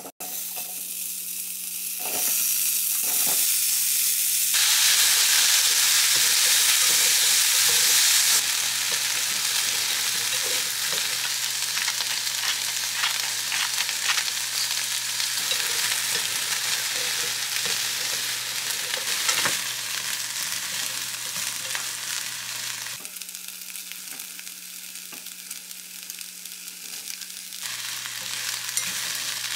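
Diced onion, bell pepper and zucchini sizzling in hot oil in a nonstick pan, with short clicks and scrapes of stirring. The sizzle builds a couple of seconds in, is loudest for a few seconds, then settles into steady frying.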